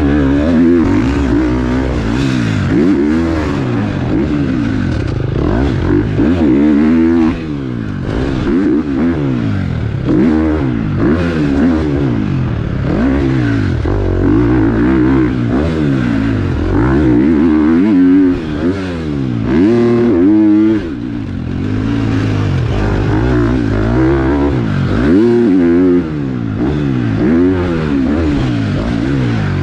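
KTM four-stroke single-cylinder motocross bike riding hard: the engine revs up and falls back again and again as the throttle is opened and chopped, with several brief drops where the throttle is shut off.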